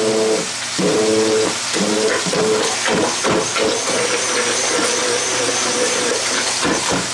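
Hand-held immersion (stick) blender running in a pot of boiled potatoes, mashing them; its motor tone rises and falls in pitch as it works through the thick mash, with a thin high whine joining from about three seconds in.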